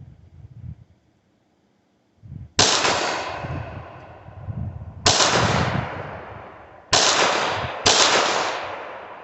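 Four shots from a 1911 pistol, spaced unevenly with the last two close together, each followed by a long, slowly fading echo.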